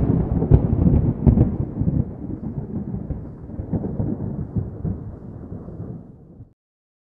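Rolling thunder sound effect: a loud crack and rumble that slowly dies away, stopping about six and a half seconds in.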